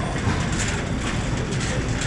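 Wire shopping cart rolling on a hard store floor: a steady rumble from its wheels with the basket rattling.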